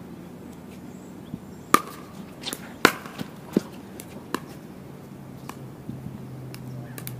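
Pickleball rally: sharp pops of hard paddles striking the plastic ball, several in a row roughly a second apart or less, the loudest about two seconds in and again about a second later.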